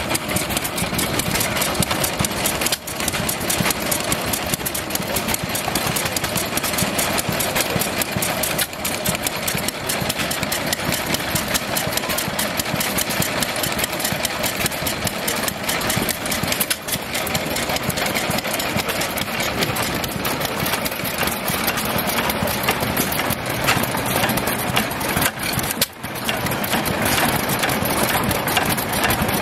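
Several antique hit-and-miss stationary gas engines running together, making a dense, steady run of quick strokes.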